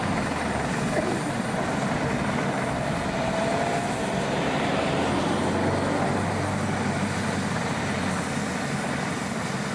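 Air ambulance helicopter running on the ground, a steady noise of turbine engine and turning rotor as it prepares to lift off.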